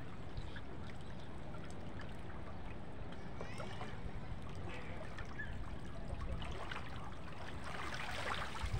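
Water trickling and sloshing, with scattered small splashes and knocks that grow busier near the end.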